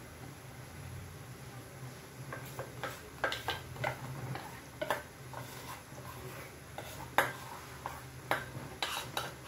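Metal spoon scraping and clinking against a steel bowl as thick batter is poured out of it, a scatter of short clinks starting about two seconds in, the sharpest about seven seconds in, over a steady low hum.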